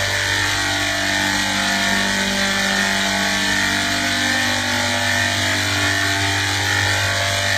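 A steady, unchanging machine drone: a constant low hum with several fixed tones over a continuous hiss.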